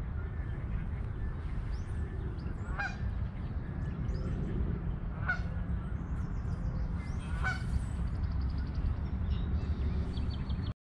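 Geese honking at a lake edge: three separate honks a couple of seconds apart over a steady low rumble, with small birds chirping high and a fast trill near the end.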